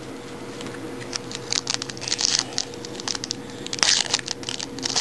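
Crinkling and rustling of hockey trading cards and their pack wrapper being handled, in irregular crackly clusters that grow busier from about a second in.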